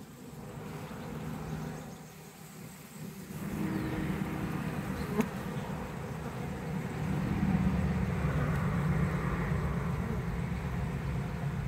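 Honeybees buzzing steadily around an open nuc hive, the buzz swelling louder a few seconds in. One sharp click partway through.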